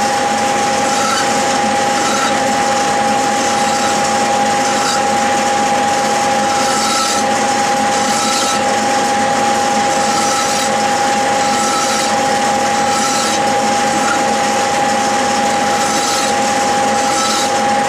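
Metal lathe running with a steady whine while a flat file is stroked across the spinning steel shaft, each stroke a short scraping rasp every second or few, breaking the corners of the work.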